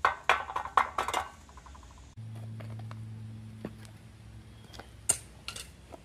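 Metal-on-metal clinks and clatter of foundry tools, a quick run of them in the first second or so, followed by a steady low hum with a few sharp clicks.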